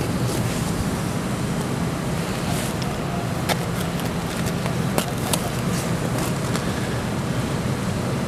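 Steady street noise with a low engine hum underneath, broken by a few sharp clicks about three and a half and five seconds in.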